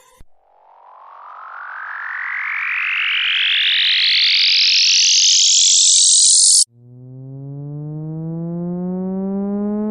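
A sound effect: a rushing, whooshing sweep that climbs steadily in pitch and grows louder for about six seconds, then cuts off abruptly. A low, siren-like tone then starts and winds up, rising slowly in pitch.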